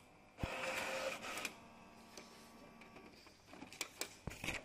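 Epson EcoTank inkjet printer printing a nozzle check page. A loud burst of paper feed and print-head travel starts about half a second in and lasts about a second, then quieter running follows. A run of clicks and knocks comes near the end as the page is fed out.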